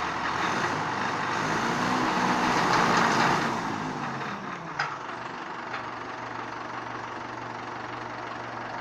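An engine running, getting louder and higher for the first three seconds or so, then dropping back to a steadier, lower hum. There is a single sharp knock a little before the five-second mark.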